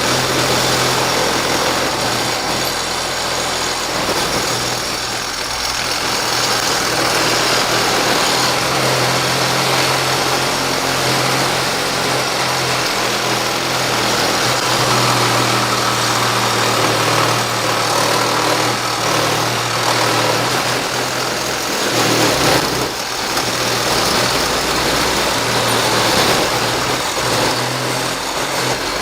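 Makita CXT 12-volt cordless reciprocating saw running continuously, its blade sawing slowly through thick, hard aluminum stock; the saw stops near the end.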